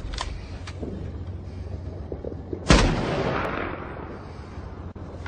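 Movie gunfire: one loud shot about two and a half seconds in, ringing out in a long echo that fades over about two seconds.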